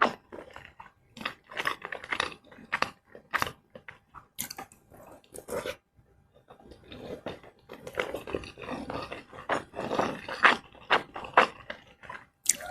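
Close-miked eating: a person chewing and biting mouthfuls of fried rice and flour-battered fried liver, a quick run of sharp crunchy, wet mouth sounds that pauses briefly about six seconds in, then picks up again.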